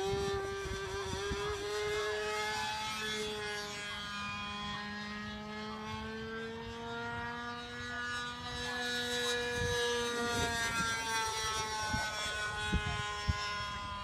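Engine of a radio-controlled model airplane flying overhead: a high, steady drone whose pitch slowly rises and then sinks again as the plane passes and turns. A few light knocks come near the end.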